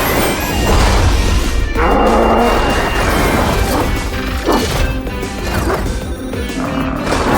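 Cartoon action sound effects, crashing and clanking impacts, over background music.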